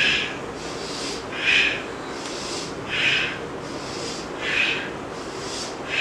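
A man breathing forcefully in time with a repeated twisting exercise: a sharp, hissing exhale about every one and a half seconds, with fainter breaths in between.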